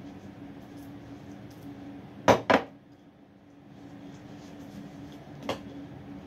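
Glassware clinking as glass cups are handled and set down on a counter while being dried with a towel: two sharp clinks close together a little over two seconds in and a lighter one near the end. Towel rubbing and a steady low hum lie underneath.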